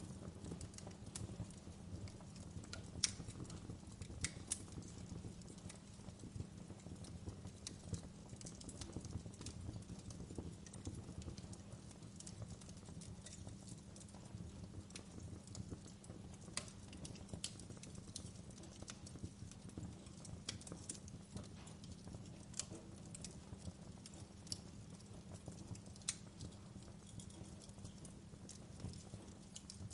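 Wood fire crackling in a fireplace: irregular sharp snaps and pops, a few louder than the rest, over a steady low rumble.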